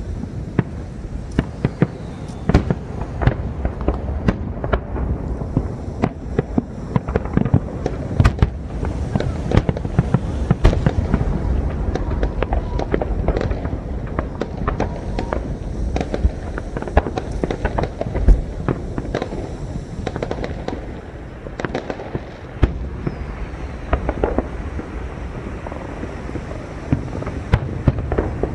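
Aerial fireworks bursting one after another in rapid succession: sharp bangs over a continuous low rumble, with one especially loud bang about 18 seconds in.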